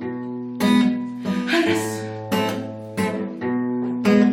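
Acoustic guitar strumming chords in an even rhythm, about three strokes every two seconds, an instrumental break between sung verses of a song.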